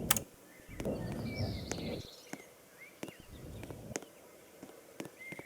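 Footsteps in snow: a sharp step about every half second to a second, with two stretches of low rumbling noise in the first four seconds. A few short high chirps come in between.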